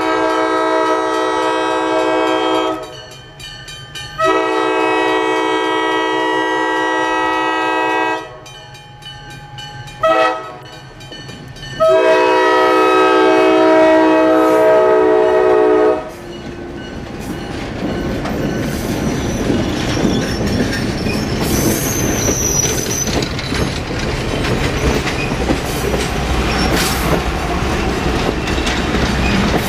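Diesel locomotive PAR 1 of the Pan Am Railways office car train sounds its multi-chime air horn in the grade-crossing pattern: two long blasts, a short one and a final long one. The locomotive and its passenger cars then rumble past, with wheels clicking over the rail joints.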